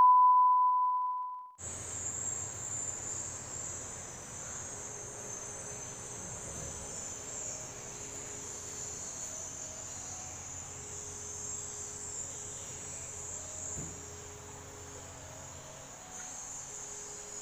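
A steady 1 kHz test tone that fades out about a second and a half in, followed by a continuous high-pitched insect trill over faint background hum.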